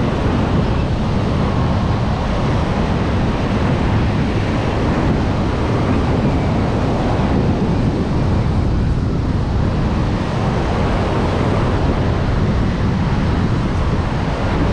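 Steady wind rumbling on the microphone over the constant wash of beach surf.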